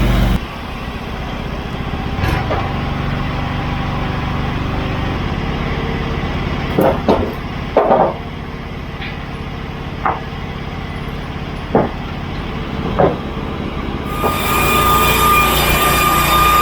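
Portable band sawmill's engine running throttled down, with several wooden knocks and clunks of boards or the log being handled. About fourteen seconds in it throttles up again, louder, with a steady high whine.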